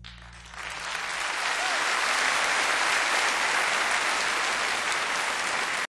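Audience applauding, swelling up about half a second in, holding steady, then cutting off abruptly.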